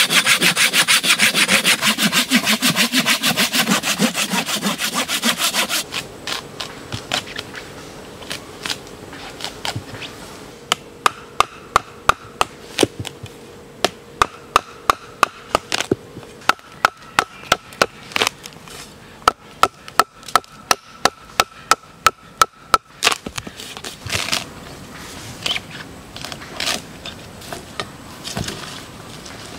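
A saw cutting through a log in rapid strokes for about six seconds, then a long run of sharp knocks, about two a second, as a blade is driven into the end grain of a log, with softer scraping and chopping near the end.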